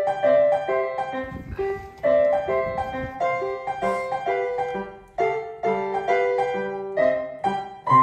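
Background music: a light piano tune played in a quick, even rhythm.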